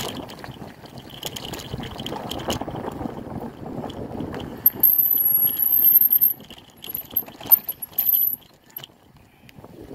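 Bicycle rolling over a dirt trail, its parts and mount rattling over the bumps. About halfway in a thin, very high squeal starts, wavers, then breaks into short chirps and stops near the end, as the rolling noise dies down.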